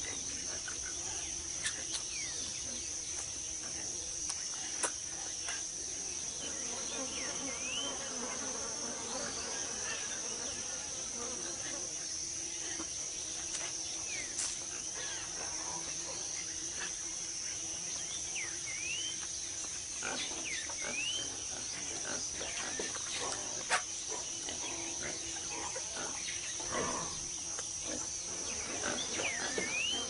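Rainforest ambience: a steady high-pitched insect drone, with scattered short rising chirps and some low animal calls.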